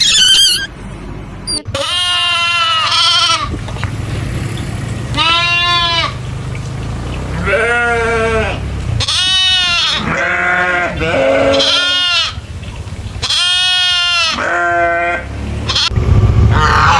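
Farm livestock bleating: about nine separate bleats, each roughly a second long with a wavering pitch, some coming in quick pairs. About a second before the end the bleating stops and a rougher noise begins.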